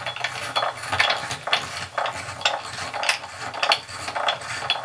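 Metal tubular tool turned by hand in a Moen tub faucet's valve body, driving the plastic cartridge retainer down the fine copper threads: a run of short metallic clinks and scrapes, about two a second.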